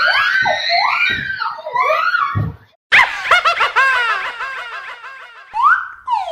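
Girls' shrill laughing and shrieking, then after a short break a sudden loud cackling laugh with many quick, evenly spaced 'ha' pulses that fades away. Near the end come quick rising and falling swoops.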